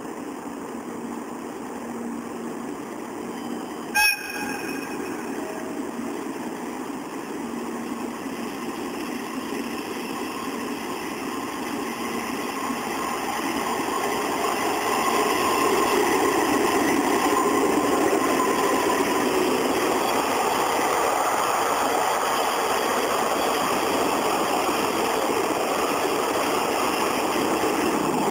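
Passing train, the Ginga overnight express: a steady rail rumble that grows louder about halfway through and stays loud as the train goes by. A brief, loud blast sounds about four seconds in.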